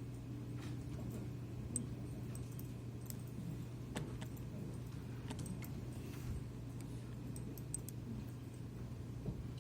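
Scattered light clicks and taps of computer keyboards and mice over a steady low electrical hum.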